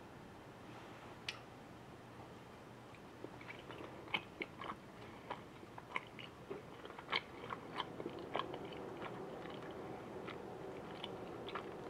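A person chewing a boba milk tea mochi, with irregular small mouth clicks that start about three seconds in and come thickest in the middle.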